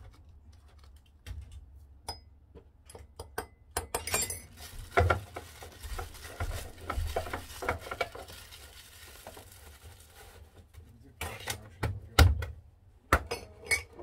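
Cup, spoon and other kitchenware clinking and knocking while instant coffee is made, with a busier stretch of rattling in the middle and several loud knocks near the end, over a low steady rumble.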